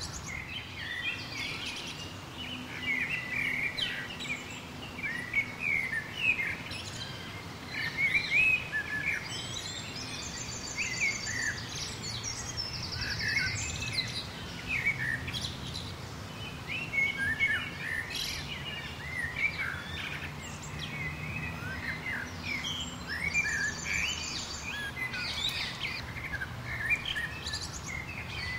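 Several songbirds chirping and singing in a busy chorus, with two rapid high trills, over a faint low steady hum.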